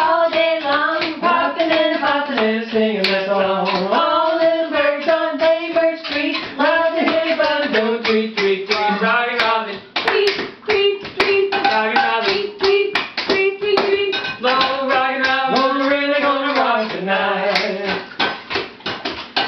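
Steady rhythmic hand clapping under a wordless tune carried on long held notes.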